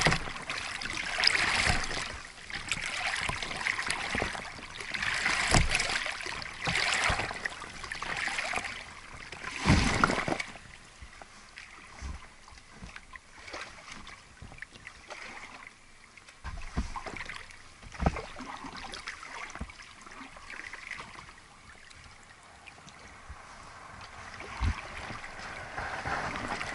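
Plastic oars splashing through the water in steady strokes, about one every second and a half, which stop about ten seconds in. After that comes quieter water lapping at the small boat, with a few short knocks.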